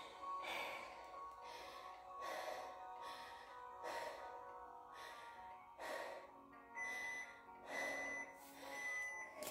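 A woman panting hard, about one heavy breath a second, recovering after a round of push-ups and burpees. Background music plays under it.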